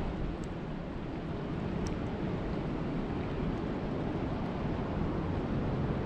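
Steady rain falling on lake water: an even rushing hiss, with a few faint, sharp drop ticks.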